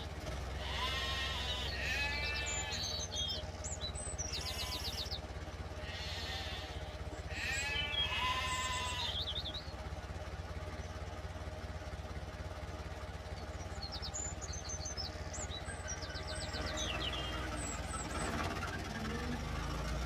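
Sheep bleating several times in the first half, then birds chirping, over a steady low rumble.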